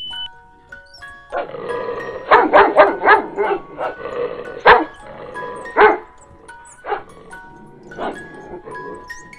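Pug puppy barking in a quick run of short yaps, then a few single barks near the end, over background music with chiming tones.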